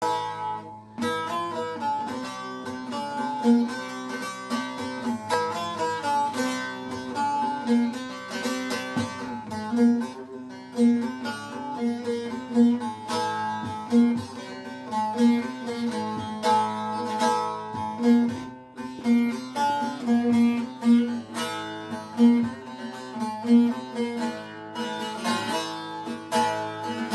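Bağlama (Turkish long-necked saz) played solo with a plectrum: a continuous folk melody of quick strokes that keeps coming back to a low drone note.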